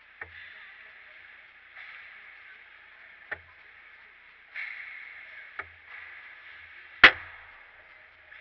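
Ice hockey play close to the net: skate blades scrape the ice in swells, and four sharp cracks of sticks and puck ring out, the loudest about seven seconds in as play reaches the crease.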